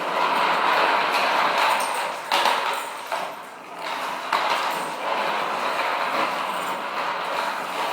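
Skateboard wheels rolling, a steady grinding rumble that drops away briefly about three seconds in, with a couple of sharp knocks.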